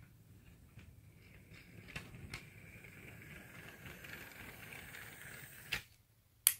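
Hornby OO gauge J15 model steam locomotive and two coaches running past on sectional track: a faint motor whine and rumble of small wheels, with ticks at the rail joints. It builds as the train nears and stops sharply near the end, followed by one sharp click.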